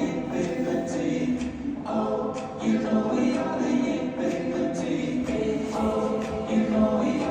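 Background music of a choir singing sustained chords, the harmony changing every second or two.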